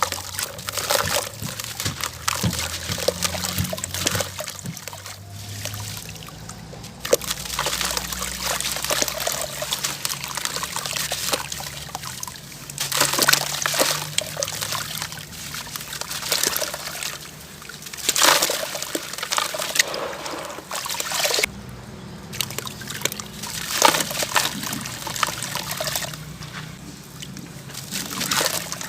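Gritty heart-shaped pieces crumbling and being crushed in water: a dense, irregular crackling crunch mixed with sloshing and trickling water, with louder crunches now and then.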